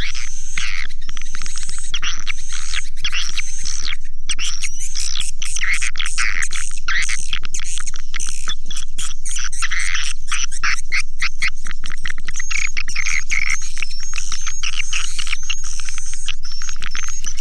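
Swiftlet calling sound: a dense flock chorus of twittering chirps and sweeping trills, with rapid clicking from about four seconds in. It is the recorded lure call played to draw swiftlets to a nesting house.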